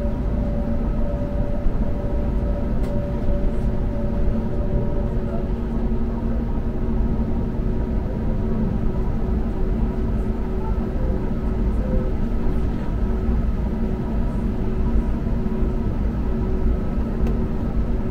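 Steady cabin rumble of an Airbus A321neo airliner with its engines running, carrying several steady hums; one of the higher hums fades out about five seconds in.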